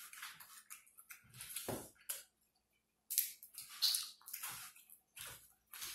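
Close-up eating sounds: wet chewing and lip smacking on shellfish, with the crackle of shell being picked apart by hand, in short irregular bursts with a brief pause a couple of seconds in.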